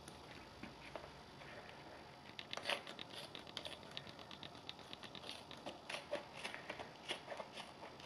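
Scissors cutting through a high-top sneaker's fabric upper: an irregular run of faint snips and crunchy clicks, several a second, with one louder snip about three seconds in.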